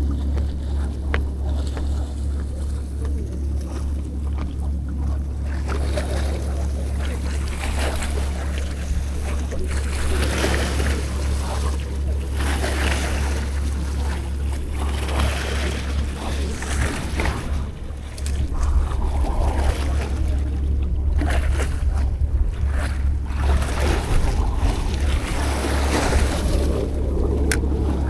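Sea waves washing and breaking against a rock seawall, under a heavy rumble of wind on the microphone that grows louder about two-thirds of the way through.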